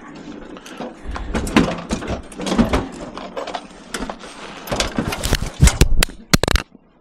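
Scrap metal being handled and loaded: a run of knocks and clatters, with the loudest bangs about five and a half to six and a half seconds in, then it stops suddenly.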